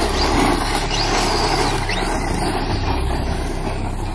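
Rlaarlo Omni Terminator 1/10-scale RC truck's brushless electric motor whining in several rising sweeps as it accelerates. Underneath is the noise of the truck tearing across loose dirt.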